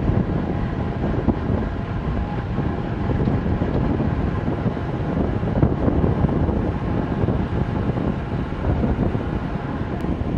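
Wind rushing over the microphone of a camera on a road bike riding at speed down a mountain road: a steady low rumbling noise with no clear events.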